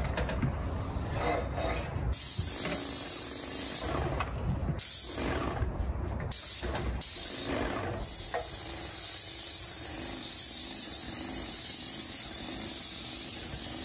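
Airless paint sprayer's gun hissing as paint is sprayed onto the bus's metal body, in a few short trigger pulls from about two seconds in, then one long unbroken pass over the second half.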